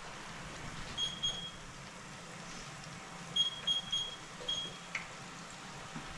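Potato fries frying in the hot oil of an electric deep fryer, a steady bubbling hiss. Short high electronic beeps come about a second in and again in a quick run around three to four and a half seconds in.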